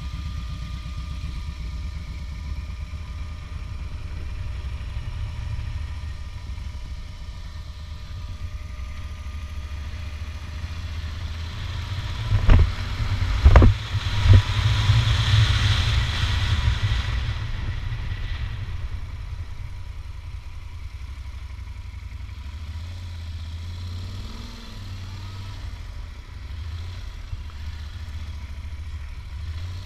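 A vehicle engine running steadily. About twelve seconds in come a couple of sharp knocks, followed by a few seconds of hiss.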